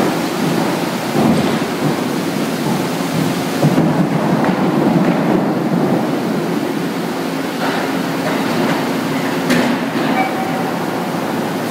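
Hot steel rolling mill at work as a red-hot slab passes through the roll stand: a loud, steady rumble and rushing water spray and steam, with a few sharp clanks.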